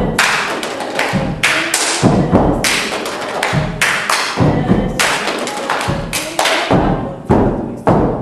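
Step team stepping: foot stomps and hand claps in a quick, syncopated rhythm, the stomps giving deep thuds under the sharper claps.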